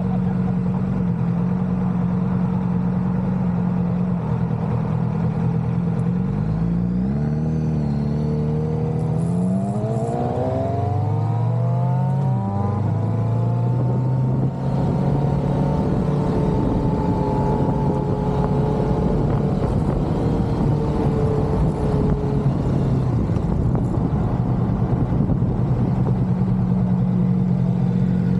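Kawasaki Vulcan S 650's parallel-twin engine on the move: a steady note at first, then the engine pitch rises as it accelerates, drops once at a gear change, and climbs again before settling into a steady cruise.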